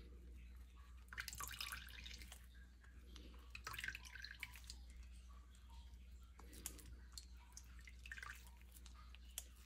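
Metal ladle pressing and scraping wet celery pulp against a stainless mesh strainer, with juice dripping into the bowl below. It comes in several short, faint bursts of wet rubbing.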